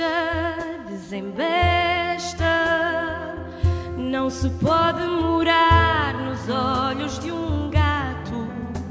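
Live band music: a voice singing wordless held notes with wide vibrato over instrumental accompaniment with a steady low pulse, echoing in a church.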